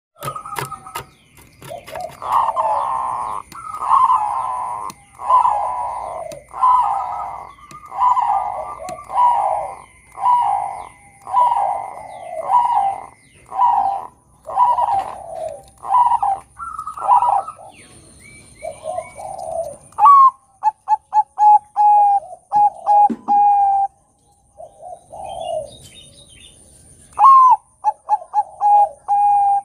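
Zebra dove (Bangkok-strain perkutut) singing: a long run of loud cooing phrases, about one a second, then around two-thirds through a quick string of short clipped notes before the coos resume.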